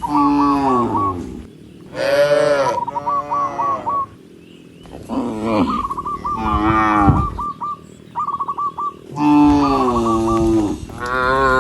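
Cattle mooing, about six long calls, some falling in pitch and some overlapping, with short quieter gaps between them. Quick runs of short high peeps come between several of the moos.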